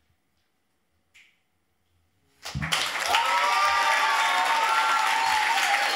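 About two seconds of near silence after the last spoken line, then an audience suddenly breaks into applause that carries on steadily.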